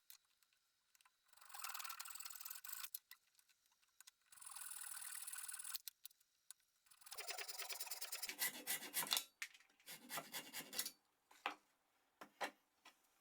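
Hand rubbing strokes of a file or abrasive on a workpiece: two long, slow strokes, then a quicker run of back-and-forth strokes, and a few light clicks near the end.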